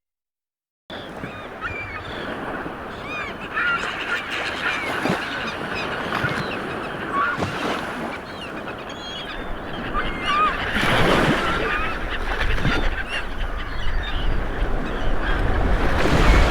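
Many birds calling at once, a crowd of short overlapping calls over a steady rushing background, starting about a second in after silence and growing louder in the second half.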